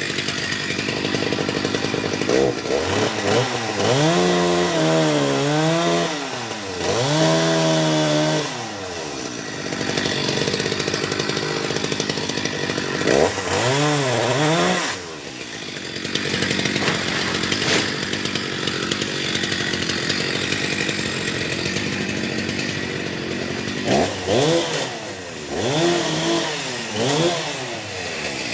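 Chainsaw cutting wood, its engine revving up and falling back in several bursts with stretches of steady running between.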